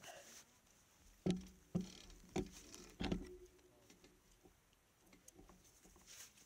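Handling knocks on the bike near the handlebar-mounted camera: four dull knocks, each with a short low ring, over about two seconds, then faint scattered ticks and rustles.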